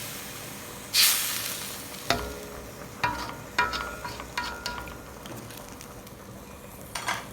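Water poured into a hot pan of chicken and soy sauce hisses and sizzles loudly about a second in, fading away, with another short hiss near the end. A metal utensil clinks against the pan four or five times, each clink ringing briefly.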